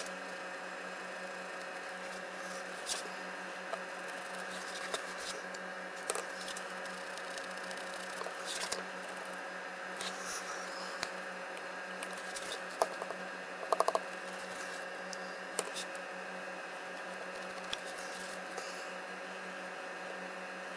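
Steady room hum with occasional light clicks and taps from hands handling a laptop video card and a small piece of stiff plastic on a wooden bench, a short cluster of them about two thirds of the way through.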